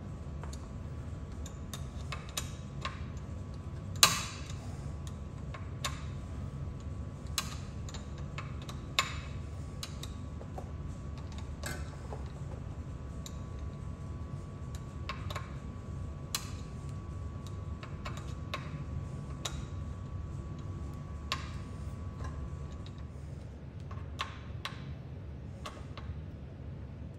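Irregular metallic clicks and ticks of hex keys turning and seating the mounting bolts of a hydraulic disc brake caliper, with one sharper knock about four seconds in, over a steady low hum.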